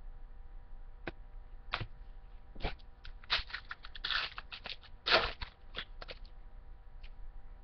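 Trading cards from a baseball card pack being handled and flipped through: a string of short papery rustles and clicks, thickest in the middle, over a faint steady hum.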